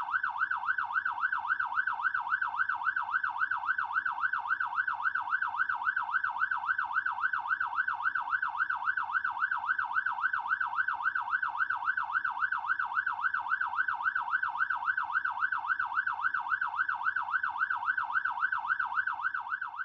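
Fire truck's electronic siren in a fast yelp, its pitch sweeping quickly up and down several times a second without a break. It begins to fade out at the very end.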